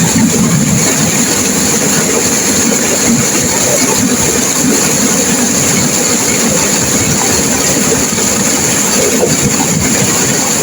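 Turbulent river water rushing and crashing over rocks, a loud, steady roar of white water that does not change.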